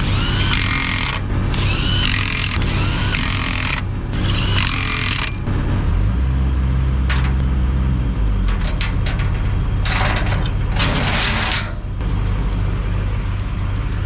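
DeWalt cordless impact wrench hammering the lug nuts of a dually's rear wheel tight, in about four bursts over the first five seconds. An engine runs steadily underneath and gets louder about six seconds in.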